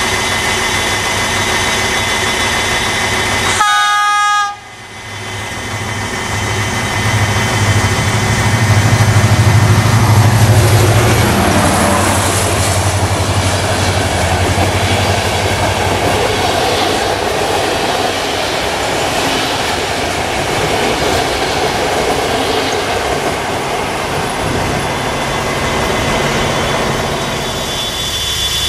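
CFR class 65 diesel-electric locomotive giving a short horn blast; after an abrupt cut it passes close with a passenger train, its engine growing louder as it nears and dropping in pitch as it goes by. The coaches then roll past with a steady rumble.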